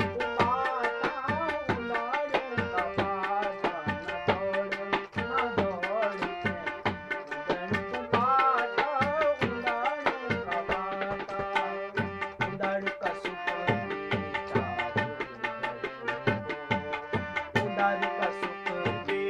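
Tabla played by hand in a steady rhythm, accompanying a man singing a Garhwali folk song, with long held notes running under the voice.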